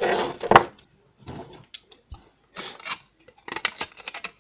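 Hands rummaging and handling small plastic parts and wires: a burst of rustling with a sharp click near the start, then scattered rustles, light clicks and knocks.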